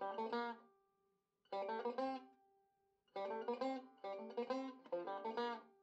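Background music: a plucked string instrument playing short phrases of notes separated by brief pauses.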